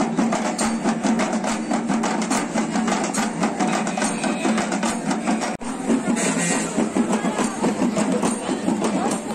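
Fast, driving drumming, with rapid evenly spaced strokes. It breaks off for an instant about five and a half seconds in and picks straight up again.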